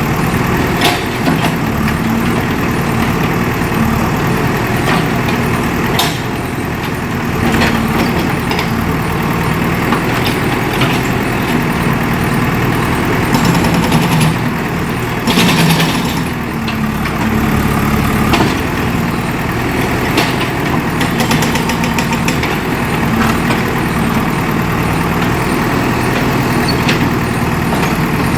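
JCB 3DX backhoe loader's diesel engine running steadily, with scattered sharp knocks and clanks, some coming in quick runs, and a louder stretch about halfway through.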